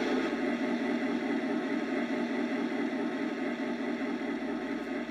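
Sound system of an LGB F7 model diesel locomotive playing a steady diesel-engine idle through its small speaker.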